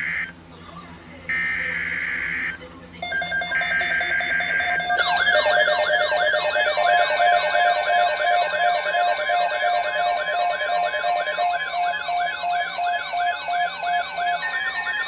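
Emergency Alert System alert for a tornado watch on NOAA Weather Radio: three screeching bursts of digital SAME header data about a second apart, then a loud electronic siren-like alert tone that sweeps down over and over, a few times a second, with a steady pulsing beep underneath.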